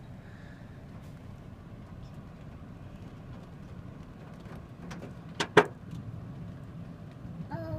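Dime- to quarter-sized hail pattering steadily on a car's roof and glass, heard from inside the car. About five and a half seconds in, two sharp loud bangs come close together as larger hailstones strike the car.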